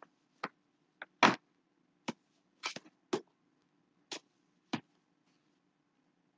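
Paperback books being handled and shuffled: about nine short taps and knocks as the books are moved and set against one another, the loudest about a second in, stopping about five seconds in.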